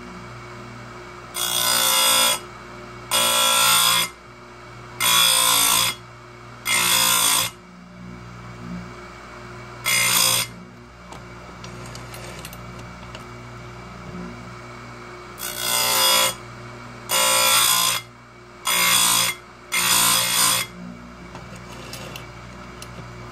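Oregon 410-120 chain grinder's motor running steadily while its abrasive wheel grinds the cutters of a 3/8-pitch chainsaw chain in about nine short passes of roughly a second each. Four come in quick succession, one stands alone near the middle, and four more come in the second half, with only the motor's hum in between while the chain is advanced.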